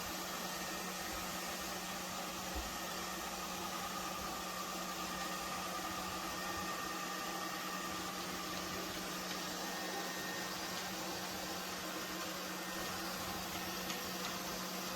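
Lefant M210 Pro robot vacuum running steadily: an even hiss of airflow over a constant low hum, with a faint high whine.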